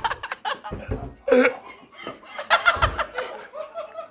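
Several men laughing and snickering in short bursts, with two dull low thuds about a second and about three seconds in.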